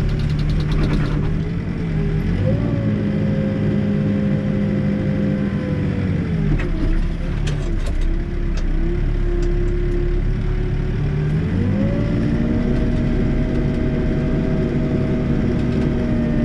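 Backhoe's diesel engine revving up, holding at speed, then dropping back toward idle for several seconds before revving up again and holding. A few light knocks are heard while it runs low.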